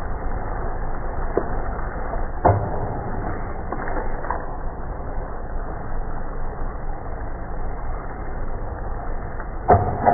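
Squid sizzling in a frying pan, steady throughout, with a few sharp knocks of the pan. The loudest knocks come about two and a half seconds in and near the end, where the pan is tossed.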